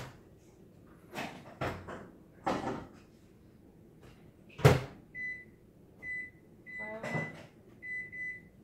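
Microwave oven door opened, a plastic pressure cooker set inside, and the door shut with a sharp clunk, the loudest sound here. Then a run of about six short, high beeps from the keypad as the cooking time is keyed in.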